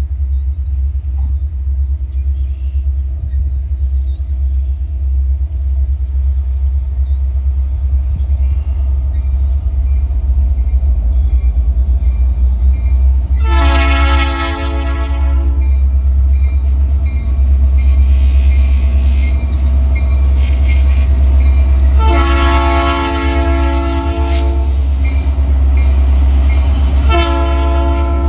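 Union Pacific diesel freight locomotive approaching and sounding its air horn, a chord of several notes. Two long blasts come at about 13 and 22 seconds in, and a third starts near the end, over a steady low rumble.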